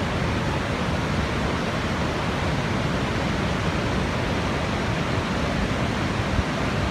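Steady rushing of the Merced River's whitewater rapids and of Vernal Fall as it pours over its brink.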